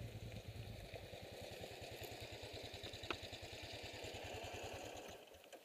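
Motorcycle engine idling faintly with an even low pulse, cutting out near the end.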